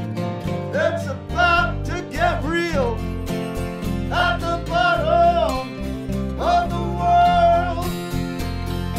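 A live band playing a country-rock song: Gibson acoustic guitar strumming over bass guitar, with a melody line that bends and slides between held notes in three phrases.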